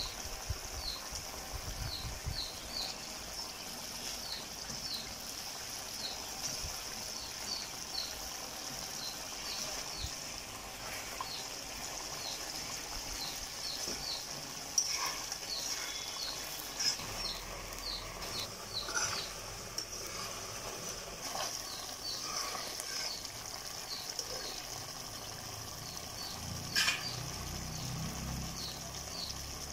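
Rui fish curry in mustard-poppy seed gravy simmering and bubbling in a metal kadai, with a metal spatula knocking and scraping against the pan a few times in the second half. A steady, regular chirping runs underneath.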